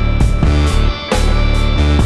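Rock music with guitar over a heavy, steady bass line and a regular beat.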